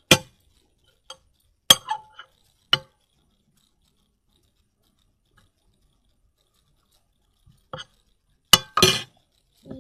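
A spoon clinking against a hard container while slime is stirred: a handful of sharp clinks in the first three seconds, a quiet stretch, then a few more near the end, the last a brief scrape.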